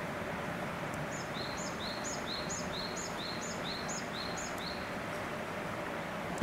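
A small bird singing a quick run of about eight two-note phrases, each a high note followed by a lower one, starting about a second in and stopping near the end, over steady background noise.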